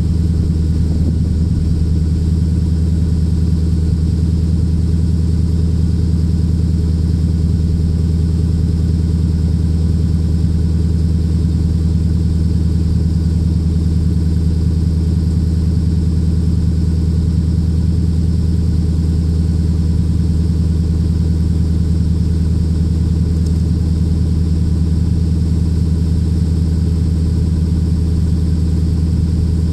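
Lexus IS F's 5.0-litre V8 idling steadily, heard through a custom valved exhaust with the resonators removed.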